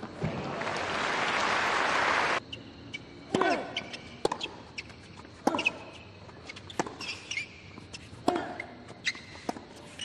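Crowd applause swelling for about two seconds, then cut off abruptly. A tennis rally follows on a hard court: sharp racquet strikes and ball bounces a second or so apart, a couple of them with a player's short falling grunt.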